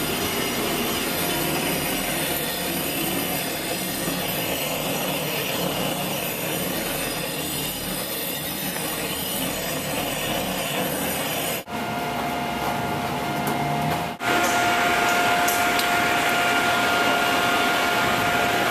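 Gas torch flame burning with a steady hissing rush while a splicer heats an underground power cable. After a break about 12 seconds in, the noise changes, and in the last few seconds a steady machine hum holds two clear pitches.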